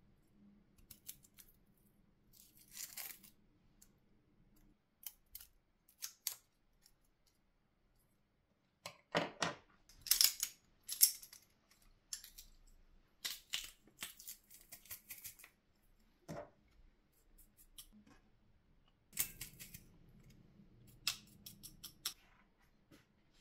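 Kitchen prep handling sounds: a knife scraping and clicking against a garlic clove, scattered taps and scrapes with the loudest bursts a little before the middle, then a handheld pepper mill grinding in short turns near the end.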